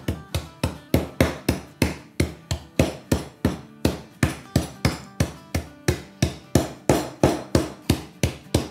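Pestle pounding sugar-and-nut brittle inside a plastic zip-lock bag, a steady run of sharp knocks about three to four a second, breaking the hard caramel sheet into crumbs.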